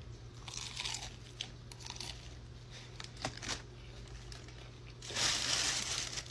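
Crinkling and crunching from handling crispy fried chicken and its takeout packaging, with a few small clicks and a louder crinkle of about a second near the end, over a steady low hum.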